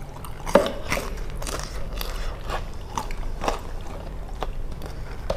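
People chewing and biting into fried Indonesian street snacks, with scattered short, crisp crunches at irregular intervals.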